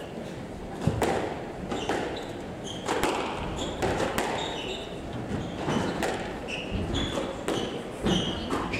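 Squash rally: the ball cracks off rackets and walls about once a second, with short squeaks of court shoes on the wooden floor between shots.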